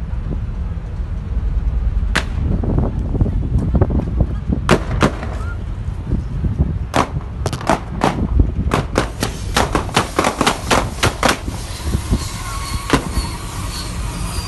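Police gunfire: many sharp gunshots, a few spaced apart at first, then a rapid volley, with one last shot near the end.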